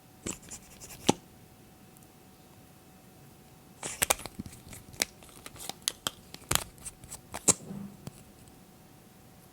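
Sharp clicks, snips and crinkles from small plastic makeup containers and packaging being handled: a short cluster near the start, then a busier run of clicks from about four seconds in to about eight.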